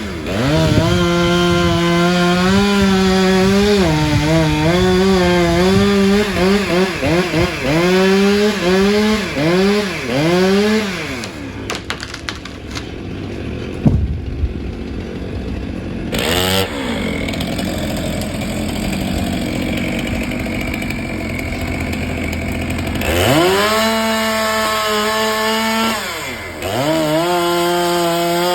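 Gas chainsaw cutting into a large pine trunk, the engine revving and dipping over and over as it bites into the wood. It drops back to a low running speed for several seconds, then revs up to full speed again near the end.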